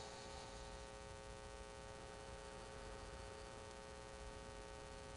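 Faint steady electrical hum: a few constant tones over a low hiss.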